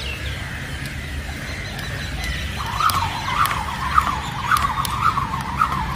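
Skipping rope spinning fast, starting a little over two seconds in: a rising-and-falling whir with each turn, about three turns a second, with light ticks as the rope strikes the concrete.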